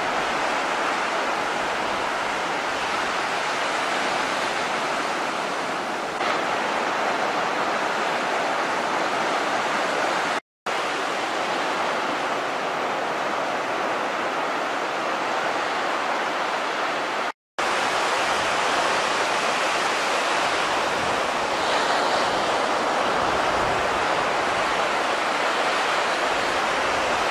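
Steady hiss of ocean surf washing onto a beach, cut to silence for a split second twice.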